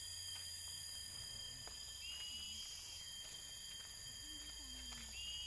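Steady, high-pitched drone of insects, several unbroken tones at different pitches. A short call that rises and then holds comes twice, about two seconds in and near the end.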